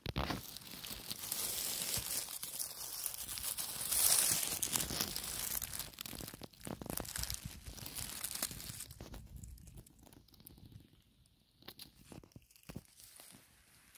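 Dry fallen leaves rustling and crackling in irregular crunches, loudest about four seconds in and dying down to scattered crackles over the last few seconds.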